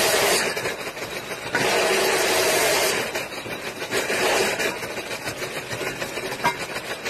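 Drilling machine boring holes in a thick steel disc, its motor running steadily with the bit grinding through the metal. The sound is loudest in the first three seconds, then quieter.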